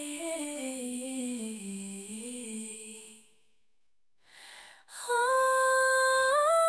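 Background pop song: a hummed vocal melody falls and fades out about three seconds in. After about a second of silence the music starts again with held notes that step upward.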